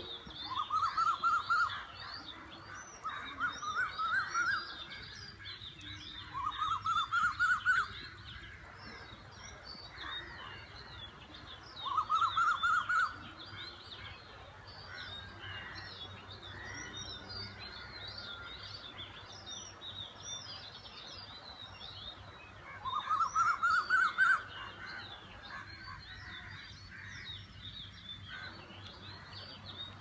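Dawn chorus of many birds calling and chirping at once, over which one bird repeats a loud, quick run of rising notes five times.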